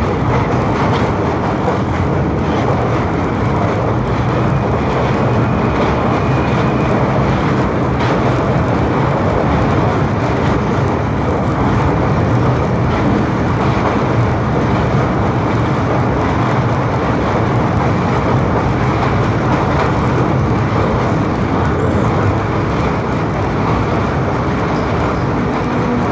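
Passenger train running at speed over a steel truss bridge, heard from a carriage window: a loud, steady rumble of wheels on the rails.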